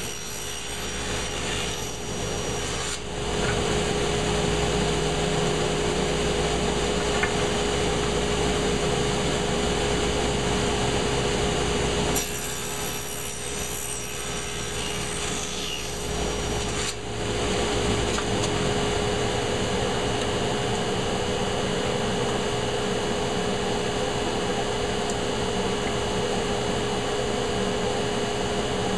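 Table saw running and cutting walnut strips along its fence, the motor giving a steady hum under the noise of the blade in the wood. The cutting noise eases briefly in the first few seconds and again for a few seconds around the middle, while the saw keeps running.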